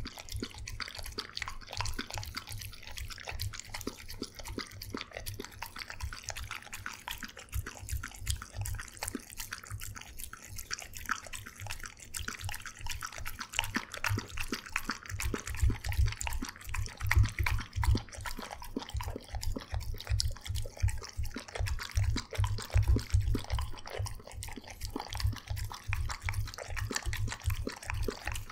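A dog eating wet food from a stainless steel bowl: rapid, continuous lapping, smacking and slurping, with the tongue and muzzle clicking against the metal. From about halfway through, heavier rhythmic low knocks come in as it works at the bowl harder.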